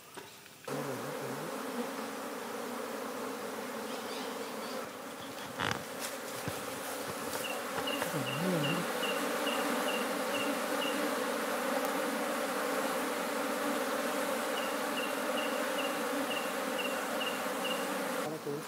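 A swarm of Indian honey bees buzzing in a steady dense hum, starting about a second in, as the colony is scooped by hand into a wooden hive box. Two runs of short high chirps, about four a second, sound over the hum in the middle and near the end.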